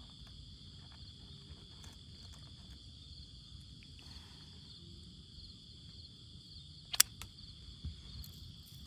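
Night insect chorus, a steady high-pitched trilling. A single sharp click sounds about seven seconds in.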